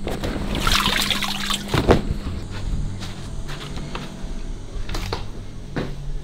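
Water splashing and trickling over a steady low hum, with a louder rush of water about a second in.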